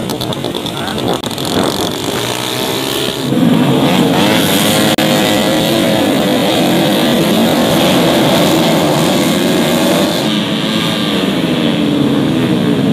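Racing underbone motorcycles at high revs passing close by: one or two bikes at first, then about three seconds in a whole pack arrives and the sound jumps louder as many engines rise and fall in pitch together, thinning out near the end.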